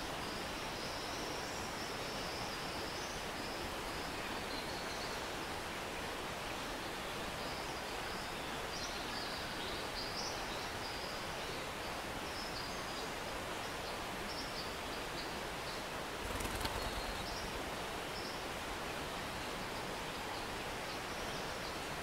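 Steady rush of a small rainforest stream flowing, with intermittent high chirping from forest creatures over it. About three-quarters of the way through comes a brief low bump with a rustle.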